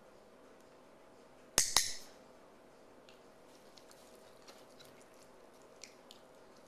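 Dog-training clicker pressed and released once, two sharp clicks in quick succession about a second and a half in, marking the dog's blink. A few faint small clicks follow.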